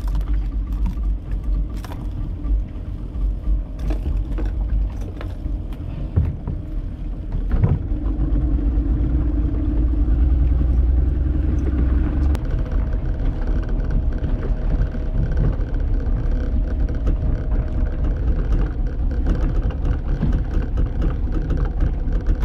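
Boat's outboard motor running under way with a steady rumble. It grows louder and steadier about eight seconds in, after a few sharp knocks in the first seconds.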